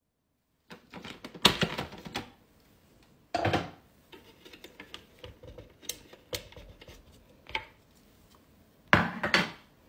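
Food processor parts being handled: the plastic bowl and lid clack and the metal slicing disc knocks as it is lifted off. There are a few separate bursts of clatter, the loudest about three and a half seconds and nine seconds in, with light ticks between.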